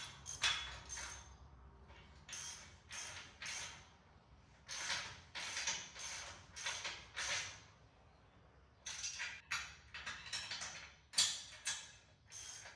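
Hand ratchet wrench tightening a nut and bolt, clicking through a series of short strokes about two a second, with a pause between runs.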